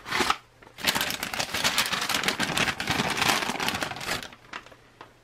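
Plastic and paperboard ration packaging crinkling and rustling as it is handled: a short rustle at the start, then about three seconds of steady crinkling that fades out near the end.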